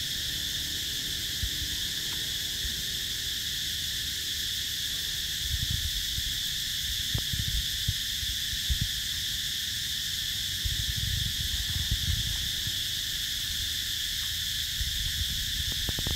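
A steady chorus of insects droning in one high, unbroken band. Low muffled rumbles and knocks come and go through the middle.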